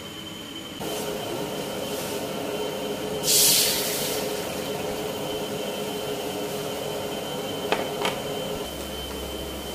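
Steady roar of a gas wok burner, with water poured from a bowl into a steel wok: a brief loud splash about three seconds in. Two light knocks follow near the end.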